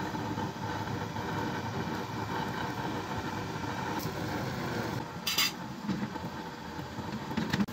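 Steady rumbling hiss of a stove burner under an iron tawa with a paratha on it. A short clink of metal comes a little after five seconds in.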